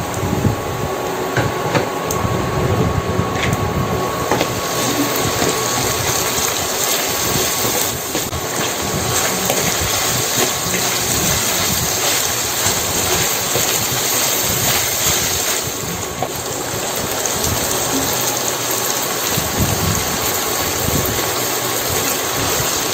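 Oil sizzling steadily in a stainless steel pan as diced onion, tomato and salted black beans sauté, with a wooden spoon scraping and tapping as they are stirred.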